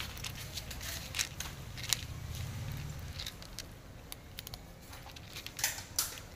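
Cats crunching dry kibble: an irregular run of short, sharp crunches, the loudest two coming near the end.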